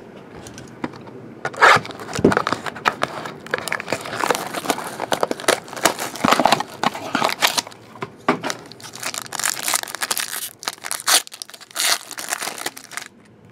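Shiny plastic wrapper being torn off a trading-card pack and crinkled in the hands. It starts about a second and a half in as a dense run of sharp crackles and stops just before the end.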